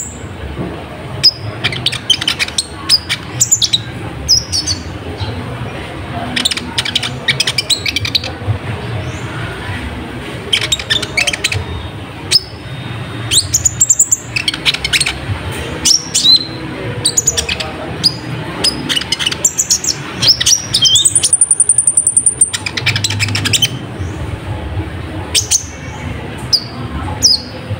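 Olive-backed sunbird (kolibri ninja) singing: bursts of rapid, high, sharp chirps and twittering sweeps. About three quarters of the way through comes a held, very high trill lasting a second or so.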